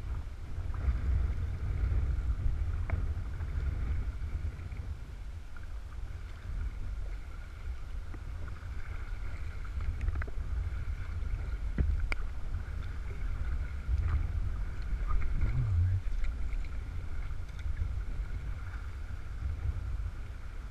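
A kayak being paddled on a moving river, heard through a small action-camera microphone. A steady low rumble of water and wind on the mic runs under paddle strokes, with a few light knocks.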